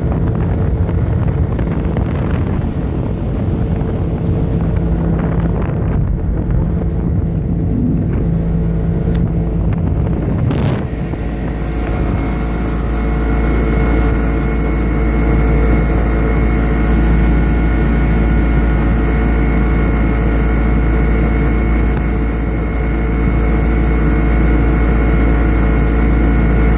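Yamaha 90 hp two-stroke outboard motor running steadily under way at cruising speed, with wind buffeting the microphone. About ten seconds in there is a brief sharp sound, after which the engine note holds steadier and a little louder.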